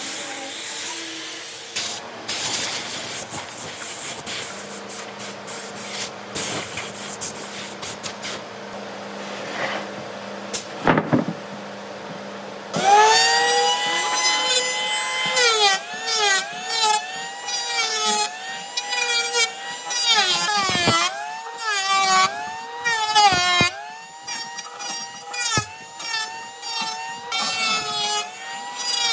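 An angle grinder with a sanding disc sanding a wooden slab: a rough scraping hiss with scattered clicks. About 13 seconds in, an electric hand planer starts with a loud motor whine whose pitch dips again and again as its blades bite into an old wooden board on each pass.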